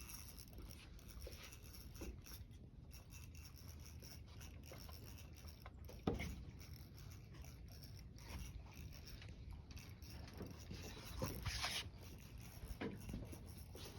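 Small fishing reel being cranked with a big catfish on the line, its gears whirring and clicking faintly. A sharp knock about six seconds in.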